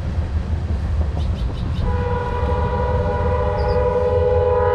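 A horn sounds one steady chord of several notes, starting about two seconds in and held for about three seconds, over a low steady rumble.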